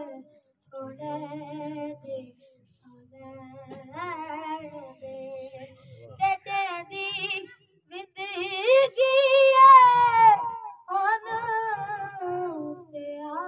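A boy's voice singing a naat unaccompanied, in long ornamented phrases with short breaks between them. The highest and loudest phrase comes about two-thirds of the way through.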